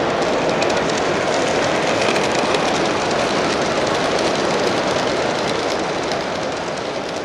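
Model train running along its track: a steady rumble with faint irregular clicking of wheels over the rails, fading toward the end.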